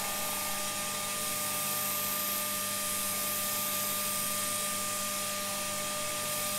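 Shop-built disc sander, driven by an old drill-press motor, running with the dust extraction that switches on automatically with it: a steady, loud rushing noise with a constant hum and whine.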